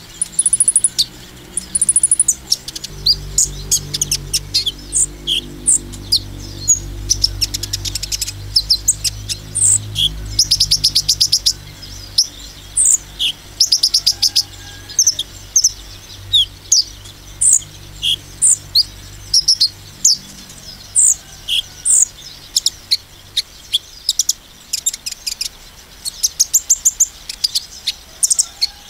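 Male copper-throated sunbird (kolibri ninja) singing its fast 'nembak' song, the kind used to provoke rival males. It gives sharp, high chirps mixed with rapid rattling trills, with barely a pause between phrases.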